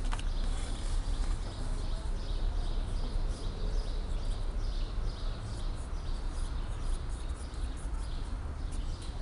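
Background ambience: a steady low rumble with frequent short, faint high chirps.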